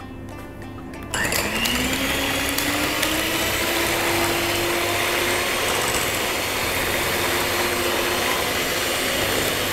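Electric hand mixer switched on about a second in, its motor whine rising as it spins up and then running steadily while its beaters whisk eggs, sugar and vanilla in a glass bowl, the first stage of beating a sponge batter toward a fluffy, creamy texture.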